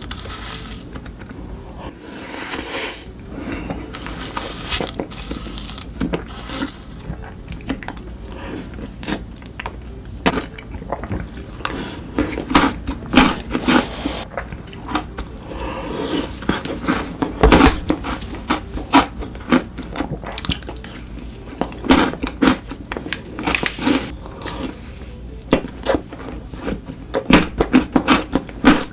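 Close-miked eating of chocolate: biting, crunching and chewing, with sharp irregular crunches and mouth clicks that come thicker and louder in the second half, over a steady low hum.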